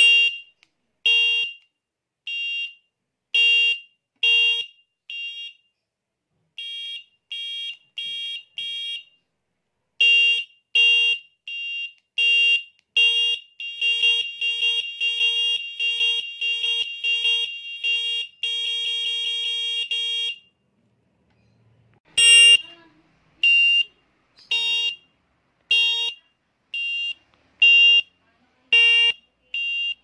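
TWOOC battery-powered electric bicycle horn sounding a shrill electronic beep, triggered again and again from its wired push-button. Single beeps come about a second apart at first, then a fast run of beeps, a held tone of about two seconds, and single beeps again after a short loud burst.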